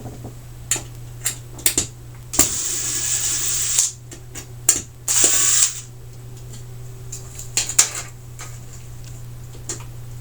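Clicks and knocks from parts of a flat-screen TV's back being handled and worked loose, with two longer rasping noises, the first about two and a half seconds in and lasting over a second, the second shorter, a few seconds in.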